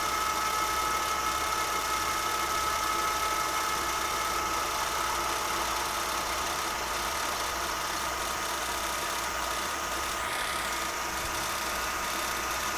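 Milling machine taking a slow cut in hard K460 tool steel with a 9/16 cutter at about 260 RPM. The sound is a steady machining hum with a thin whine, under an even hiss from the air blast cooling the cut.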